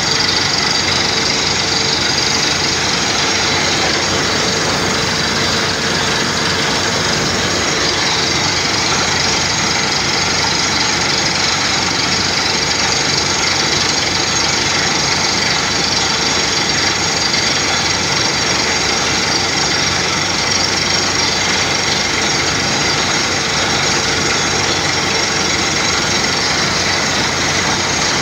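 Compressor-driven borehole drilling rig running loud and steady: a constant machine drone with steady high whining tones on top.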